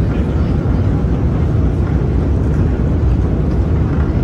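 Steady low rumble of a long, deep metro escalator running, heard while riding it.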